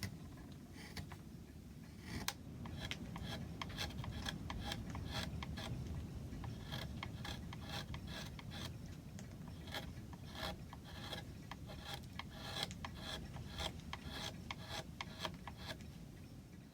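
A hand tool scraping and paring wood, in quick, irregular short strokes, as the back of a small carved wooden leaf is trimmed flat.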